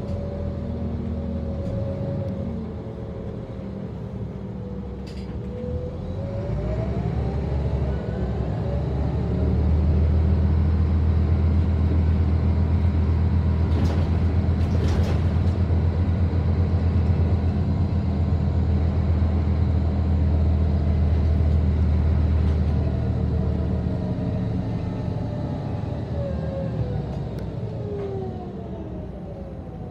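Scania L94UB bus's diesel engine and driveline heard from inside the passenger cabin while under way: a whine climbs in pitch, then a loud low drone holds for about fourteen seconds before easing, and the whine falls away near the end as the bus slows. A couple of short rattling clicks come about halfway through.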